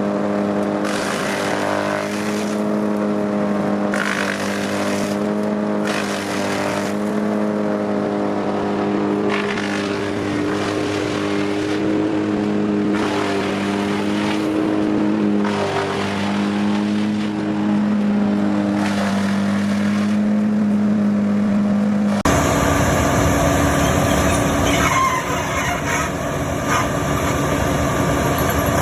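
Wood chipper engine running steadily under load, with a rush of crunching noise every second or two as wood is chipped; the engine note sags briefly on a heavier bite. About three quarters of the way through, the sound changes abruptly to a rougher, louder grinding with no steady engine note.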